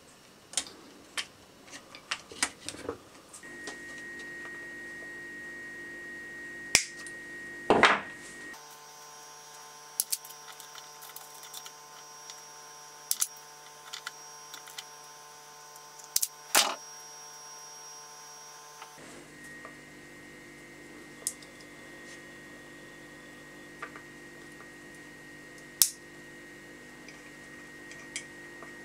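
Scattered small clicks and taps of hands handling wires, connectors and the plastic switch housing of a chop saw, over a steady background hum.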